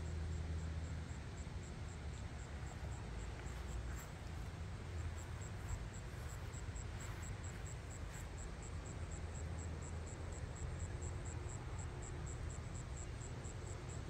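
An insect chirping in a fast, even, high-pitched pulse, with a gap of a few seconds near the start, over a steady low background rumble.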